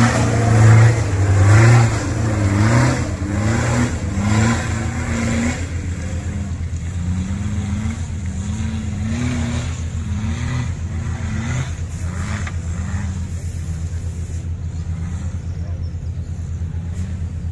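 Off-road 4x4 engine revving up and down several times under throttle, then easing to a steady low running in the second half.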